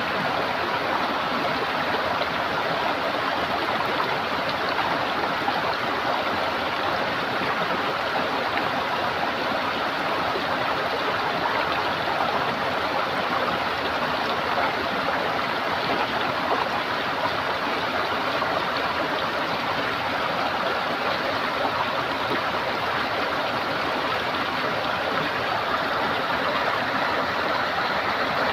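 Running water gurgling steadily, an even rush with no breaks or changes.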